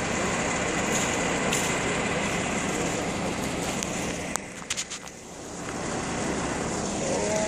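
Heavy diesel engine of logging machinery running steadily, heard as a constant rumble with outdoor noise. A few sharp handling knocks and a brief drop in level come about four and a half seconds in.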